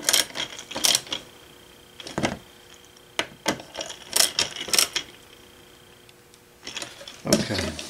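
Screwdriver turning the cover screws of a Viking RG-10A ring amplifier: a series of irregular clicks and taps, with a quieter pause of about a second and a half near the end.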